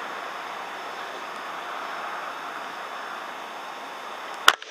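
Steady rushing background noise, then a single sharp, short crack of a PCP air rifle firing about four and a half seconds in.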